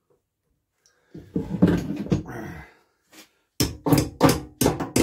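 A clatter of metal tools about a second in, then from about three and a half seconds a regular run of sharp metallic clicks, about three a second, as a spanner is worked on a tight bolt holding the shroud of an old BSA stationary engine.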